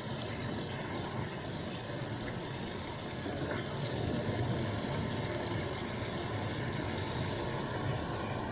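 Water spilling over a concrete spillway weir in a steady rush, the spillway running high after rain.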